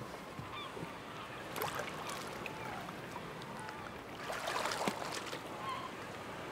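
Water splashing as a person wades through shallow water beside a wooden boat: a short splash about one and a half seconds in and a longer bout of splashing about four seconds in. Faint bird calls go on behind.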